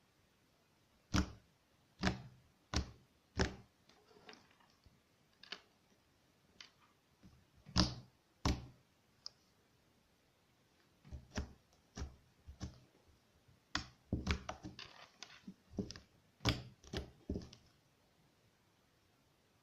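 Crunchy slime being squeezed and pressed by hand, giving sharp crackling clicks and snaps: a few single snaps about a second apart at first, then a denser run of crackles in the second half.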